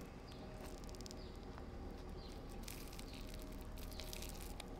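Toasted, baked bread crust with melted cheese crackling softly as it is torn apart by hand, a scatter of small dry crackles and clicks over a low hum.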